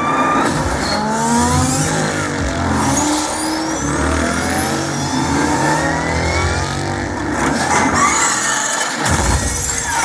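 Film sound effects of a car race played through a Klipsch Bar 40 soundbar and its wireless subwoofer: several car engines revving, their pitch sweeping upward again and again over a deep low rumble.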